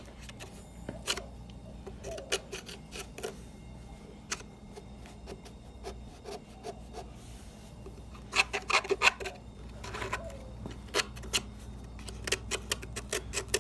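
Flathead screwdriver scraping and scratching dried dirt out of the cooling vents of an electric chainsaw's plastic housing, in short irregular strokes, busiest about eight to nine seconds in.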